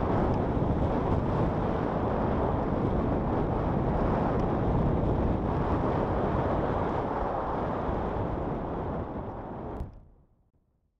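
Steady rush of wind on the camera microphone during a paragliding flight, fading away about a second before the end.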